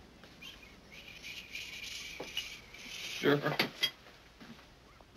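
A young man's stuttering voice drawing out a long hissing "shh" for about two seconds, the blocked start of the word "sure". It breaks into a brief, strained voiced sound with a couple of sharp clicks a little past the middle.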